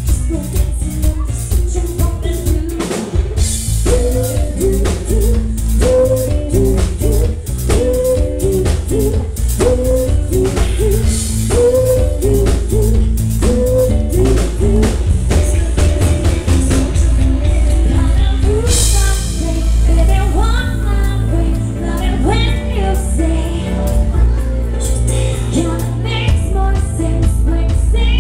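Live pop song: a female lead vocal sings over a steadily beating drum kit and a heavy bass line.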